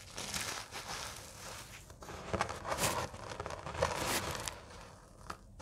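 Hands squeezing and crumbling dried, dyed cornstarch chunks into loose powder: a steady dry crunching and crackling, with several louder crunches in the middle and a short lull near the end.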